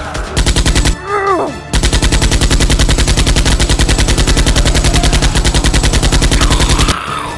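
Automatic gunfire sound effect in two bursts: a short burst under a second long, then a brief gap, then a long burst of about five seconds at roughly ten shots a second that stops abruptly near the end.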